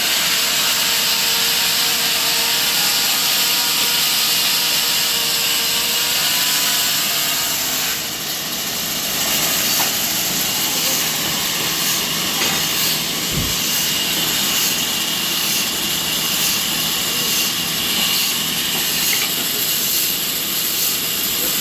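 Sawmill machinery running steadily: a loud, even hiss and whine from the saw, without a clear cutting rhythm.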